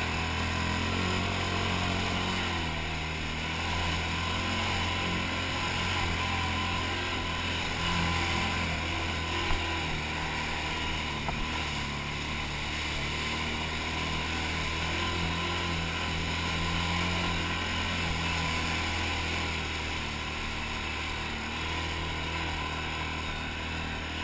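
ATV engine running steadily under load as it drives through a shallow pond, with water spraying and splashing against the machine.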